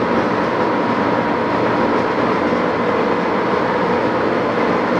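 Sidney 18-inch toolroom lathe running steadily: a dense, even mechanical rattle with a faint steady whine and no single knocks standing out.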